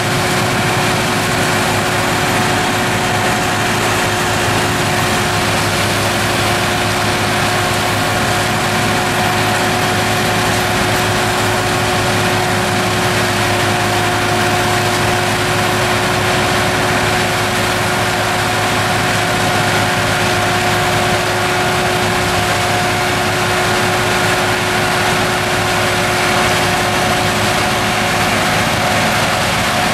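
Tractor engine running steadily under load, driving a PTO forestry mulcher whose rotor is shredding standing poplar trees. There is a constant whine over a dense roar, with no breaks or pitch changes.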